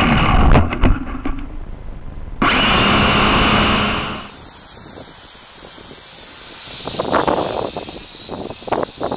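Syma X5SC-1 quadcopter's small electric motors and propellers whining steadily, heard close up from its own camera; about half a second in, a few quick knocks come as the whine drops away, and it starts up again suddenly about two and a half seconds in. From about four seconds on, the sound is much quieter: wind on the microphone with the drone heard faintly from the ground.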